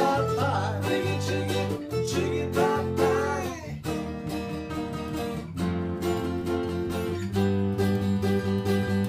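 Acoustic guitar strumming behind sung vocals. After about four seconds the singing gives way to sustained strummed chords as the song draws to its close.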